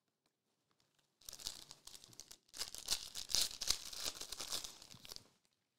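A foil Prizm trading-card pack being torn open by hand, its wrapper crinkling and tearing. A short stretch starts about a second in, then a longer, louder one follows from about two and a half seconds in.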